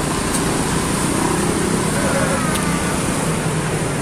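Street-market bustle dominated by a motor scooter's engine running close by, over a steady hum of traffic and faint voices.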